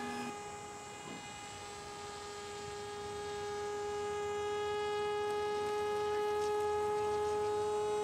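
Electric RC airplane's motor and propeller whining at a steady pitch as the plane flies in low. It grows louder as it nears, then cuts off suddenly at the end.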